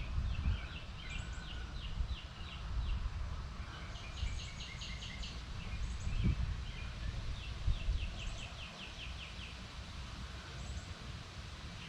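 Songbird singing: several runs of rapid, evenly spaced high chirps, each lasting a second or so, over a low rumble of wind on the microphone.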